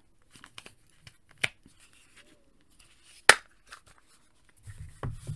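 Hard plastic clicks as the foot of a Hasbro Mech Strike Captain America mech suit toy is pushed onto its leg, with one sharp snap about three seconds in as the foot's plastic latch teeth catch. Softer handling knocks come before and after it.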